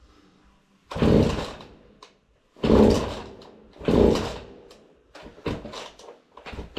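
Husqvarna 40 two-stroke chainsaw's recoil starter cord pulled three times, about a second and a half apart, each a short loud rasp that fades; the engine does not catch. Lighter clicks and knocks of handling the saw follow.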